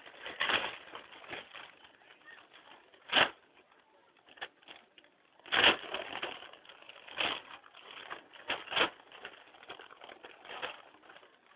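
Newspaper rustling and crinkling as it is handled close to the microphone, in irregular loud bursts with quieter rustle between.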